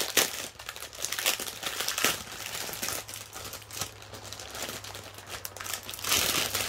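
Plastic packaging of diamond-painting drill bags crinkling and rustling as it is handled, in irregular bouts, loudest near the end.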